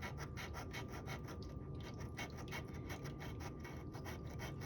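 Scratch-off lottery ticket being scratched in quick, repeated strokes, about five a second, with a brief pause a little under two seconds in: the coating is being rubbed off the play area to reveal the numbers.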